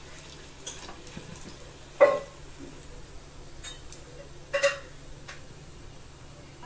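Slotted steel spatula knocking and scraping against an aluminium frying pan while lifting fried bondas out of the oil: a few sharp clinks, the loudest about two seconds in.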